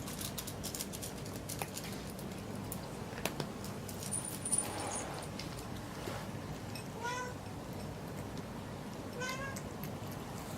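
Domestic cat meowing twice, two short calls a couple of seconds apart in the second half, over scattered light clicks and taps.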